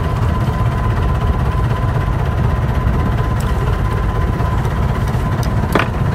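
Small fishing boat's engine idling: a steady low rumble with a thin steady tone above it, and one short sharp click near the end.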